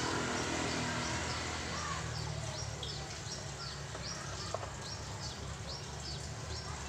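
A bird calling over and over, short high chirps that fall in pitch, about two a second for some four seconds, over a steady low hum. A single light click comes about halfway through.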